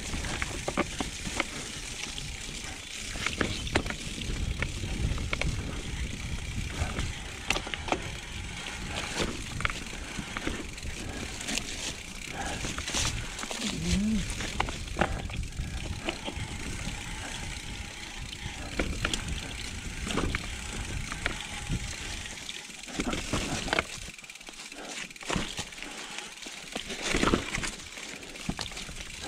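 Mountain bike being ridden on a trail: continuous rolling noise with many short rattles and knocks from the bike over bumps, and a low rumble that fades for a few seconds near the end.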